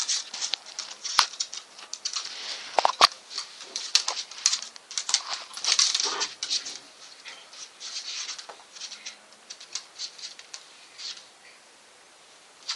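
A Staffordshire bull terrier and a Jack Russell terrier play fighting on a hard wooden floor: scuffling and claws scrabbling and clicking, with a few sharp knocks in the first few seconds. It dies down near the end.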